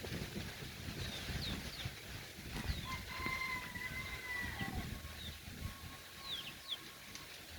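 A rooster crows once, a long drawn-out call held for about two seconds and falling off at the end, about three seconds in. Small birds chirp with short falling notes throughout, over a low wind-like rumble.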